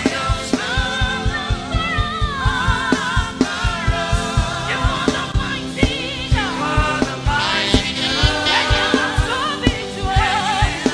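Gospel worship music: voices singing with a wavering vibrato over a full band with a steady, driving drum beat.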